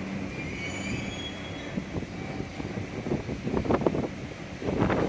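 A train running on the line, a steady low hum with a few faint high wheel squeals. From about three seconds in, gusts of wind buffet the microphone.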